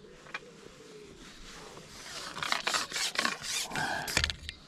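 Handling noise from pole-fishing tackle: bursts of rubbing and scraping from about halfway in, ending in a dull thump.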